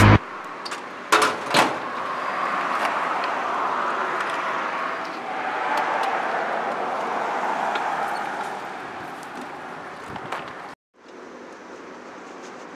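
A few sharp clicks, then petrol rushing from a pump nozzle into a Suzuki PV 50cc moped's fuel tank as a steady gushing noise that swells and then fades. The sound breaks off abruptly near the end, leaving quieter background.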